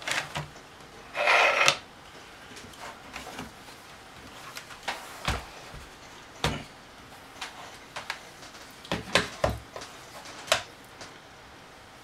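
Handling noise at a desk: a brief rustle about a second in, then scattered single knocks and clicks as a hand works a laptop and moves its cable.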